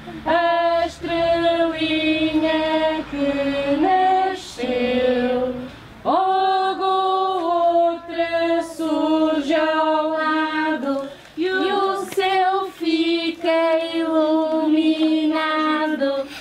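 Women and children singing a Christmas song together, unaccompanied, in phrases of held notes with brief breaks between them.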